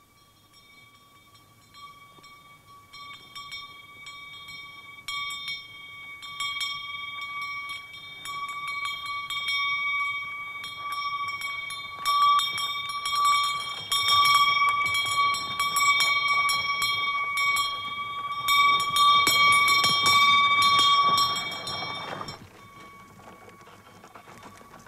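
Sleigh bells on a horse's harness jingle with a steady ringing note as the horse walks. They start faint, grow louder as the horse-drawn sleigh comes closer, then stop suddenly shortly before the end.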